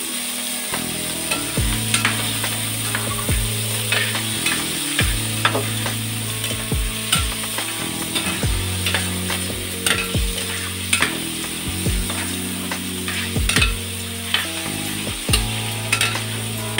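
A spatula stirring noodles frying in a pan: sizzling, with irregular clicks and scrapes of the utensil against the pan about once or twice a second.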